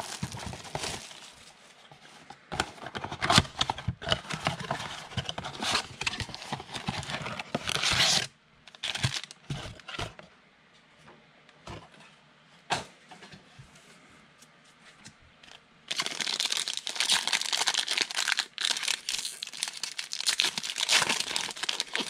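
Plastic wrapping on a box of trading card packs being torn and crinkled, then a quieter stretch of scattered taps as the packs are set out. Near the end a card pack's wrapper is crinkled and torn open.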